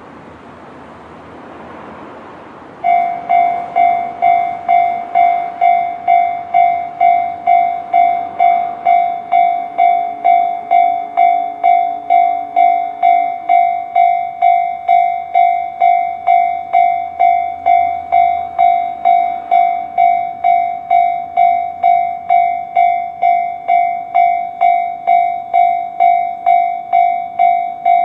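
Japanese level-crossing warning bell (Tobu-type 'C' electronic tone) starting about three seconds in, after some low background noise, then ringing steadily at about two strokes a second.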